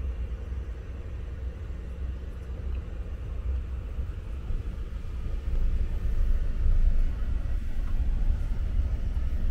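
Steady low rumble of a car's engine and road noise, heard from inside the cabin as it drives, growing a little louder about six seconds in.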